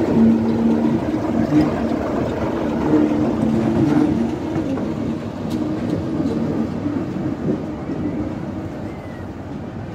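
Class 33 diesel-electric locomotive's Sulzer eight-cylinder engine running as the locomotive passes close by at walking pace, with a few sharp clicks. The engine sound eases off over the second half as the locomotive draws away.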